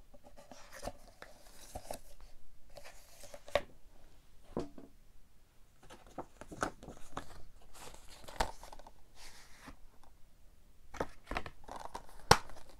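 Handling noise from a boxed Blu-ray collector's edition: cardboard slipcase and plastic case rustling and scraping, with a few short sharp clicks. The sharpest come in the second half, as the clear plastic keep case is handled.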